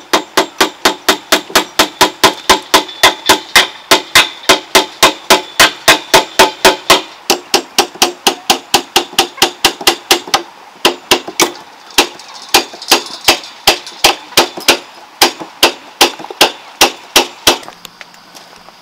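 Hammer nailing the timber of a wooden swing frame: quick, even blows of about three or four a second, each ringing briefly, that slow to spaced, uneven strikes about halfway through and stop near the end.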